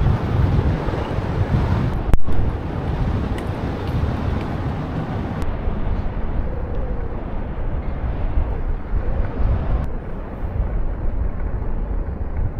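Wind buffeting the microphone over the steady rumble of a moving vehicle, with a brief dropout about two seconds in.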